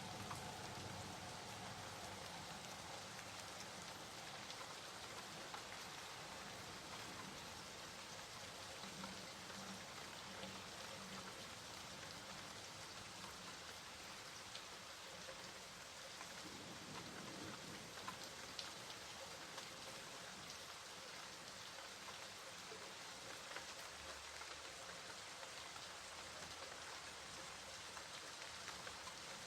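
Steady rain falling, with scattered drops ticking faintly against the even hiss.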